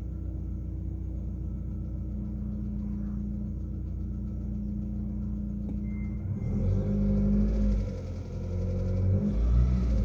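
Lada's 1.6 16-valve VAZ-21129 engine idling steadily, then revved twice near the end. It is still warming up with the knock from its newly replaced hydraulic lifters not yet gone, and runs loud through a torn exhaust flex pipe.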